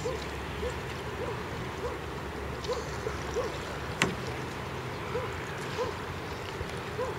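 Water lapping and gurgling around sea kayak hulls, with wind rumbling on the microphone; one sharp click about four seconds in.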